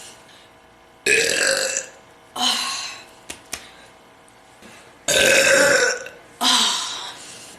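A woman burping four times in a row, each burp a separate loud belch; the third is the longest and loudest. Two brief clicks come between the second and third.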